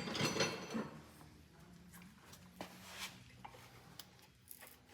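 A few scattered light clicks and taps of metal brake parts being handled and worked into place during a front brake pad job.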